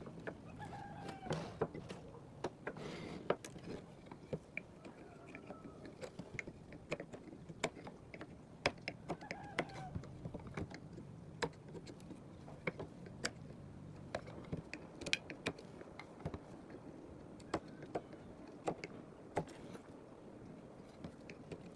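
Irregular light taps and clicks all through, with a few short chicken clucks, bent in pitch, in the background.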